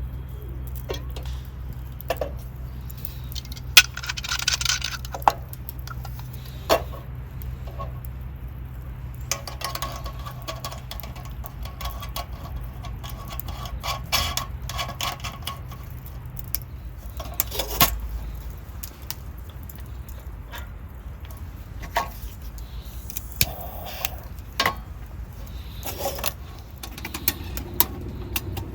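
Scattered light clicks, clinks and short rustles of camp cooking gear being handled, over a steady low hum that drops away about two-thirds of the way through.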